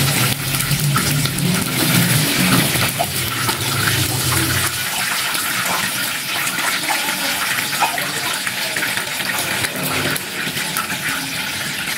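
Hot cooking oil sizzling and crackling steadily around deep-frying wonton-wrapper vegetable fritters in a frying pan, with a low hum underneath that stops about five seconds in.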